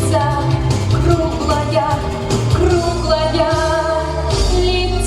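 A pop song with a singing voice over a backing track with a steady bass.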